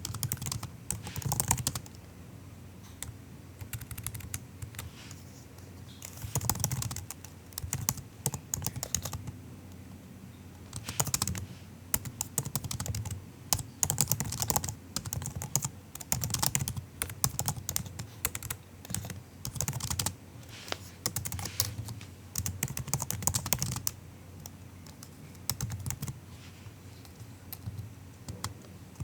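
Typing on a MacBook's built-in keyboard: soft, quick keystroke clicks in irregular bursts, with short pauses between them.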